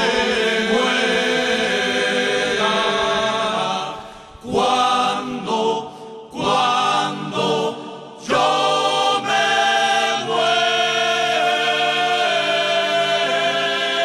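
Background music of a choir singing held chords, with a few short breaks between phrases around the middle.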